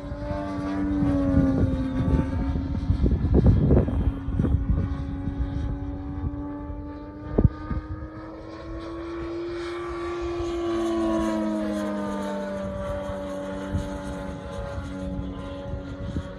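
DA-200 four-cylinder boxer engine of a 40%-scale Extra 330 LX model aircraft in flight, a steady drone whose pitch rises and falls as the plane manoeuvres. There is a rough, noisy stretch a few seconds in and a single sharp click about halfway.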